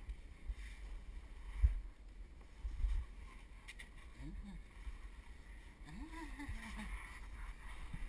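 Rubbing and shuffling handling noise from a camera carried close against sandstone walls in a narrow slot, with two thumps about a second and a half and three seconds in. Faint voices come in briefly near the middle.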